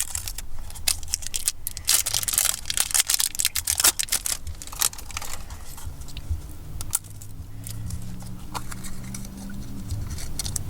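Plastic blind-barrel toy capsule and its wrapping being handled and opened: crinkling, tearing and sharp plastic clicks, busiest in the first five seconds, then quieter handling.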